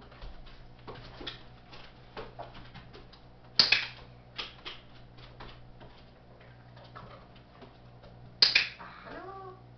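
Handheld training clicker clicking twice, about five seconds apart, each a sharp double click: the marker for a correct move in clicker training. Lighter ticks and taps run underneath.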